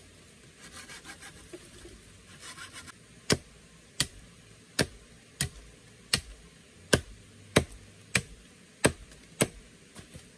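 Machete chopping wood: a run of about eleven sharp chops, roughly three every two seconds, starting about three seconds in, after a few seconds of scraping and rustling.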